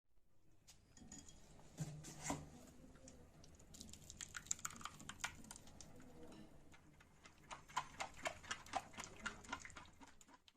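Faint clicks, taps and light clinks of kitchen utensils and dishes being handled, coming thick and irregular in two spells.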